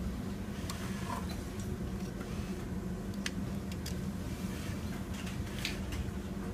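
Steady low hum of industrial sewing machines in a garment workroom, with a few scattered light clicks and ticks as fabric is handled at a Juki lockstitch machine.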